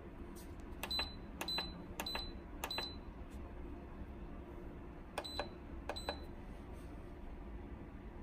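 Instant Pot Plus Mini control-panel buttons being pressed, each press giving a short high beep: four beeps about half a second apart, then two more a few seconds later.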